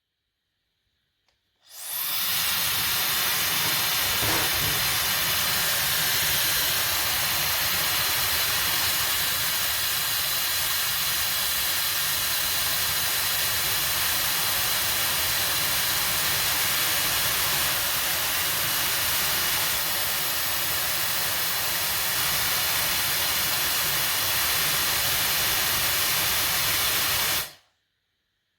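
Hair dryer switched on about two seconds in and blowing steadily with a loud rush of air and a faint high whine, then switched off near the end.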